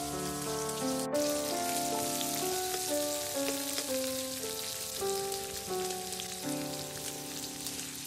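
Instrumental background music playing a slow melody of single held notes, over a steady hiss.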